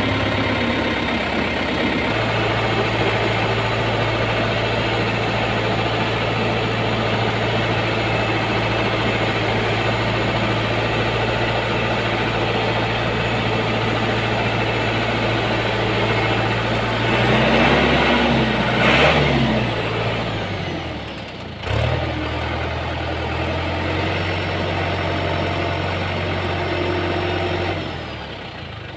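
John Deere 5715 tractor's diesel engine idling steadily while its power steering is tried out after an oil refill. Past the middle the revs rise and fall twice, followed shortly by a single sharp knock, then the steady idle returns.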